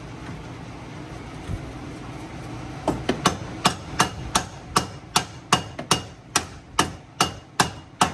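A mallet striking a shock absorber's lower mounting bolt in quick repeated taps, about two and a half a second, starting about three seconds in, each strike ringing with a metallic ping. The taps drive the bolt through mounting holes that don't line up perfectly.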